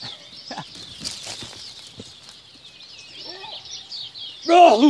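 Dawn bird chorus, many birds calling at once, with a few faint clicks. Near the end, one short, loud wavering call rises over it.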